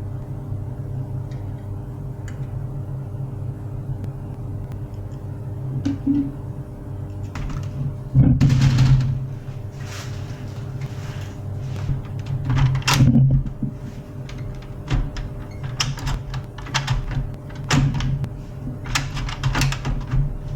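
Scattered clicks, knocks and clunks, the loudest clusters about eight, thirteen and nineteen seconds in, over a steady low hum: the sound of printer parts being handled.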